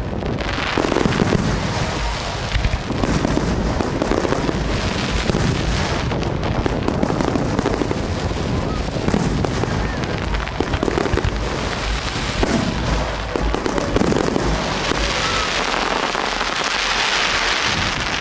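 Aerial fireworks going off in a continuous barrage of bangs and crackling, with a dense hissing crackle building over the last few seconds.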